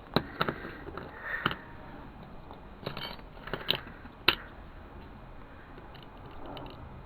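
A handful of sharp metallic clicks and knocks, about six in the first four and a half seconds, as the lead fishing-weight mould and its pins are handled. They sound over a steady low hiss.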